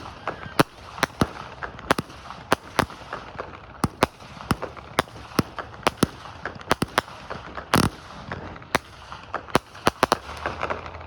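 Fireworks going off: a run of sharp bangs, irregular at about two or three a second, with one heavier, longer blast about three quarters of the way through.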